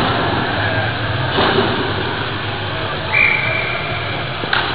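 Ice hockey rink ambience heard from a helmet-mounted camera: a steady low hum with a couple of faint knocks, and a thin, steady high tone lasting just over a second about three seconds in.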